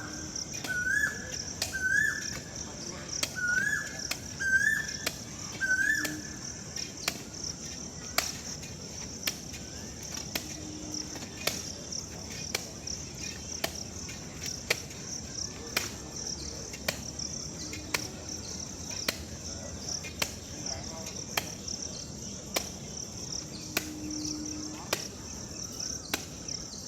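Crickets trilling steadily, with a bird repeating a short rising call about once a second for the first six seconds. From about eight seconds in, sharp knocks land at an even pace of roughly one a second.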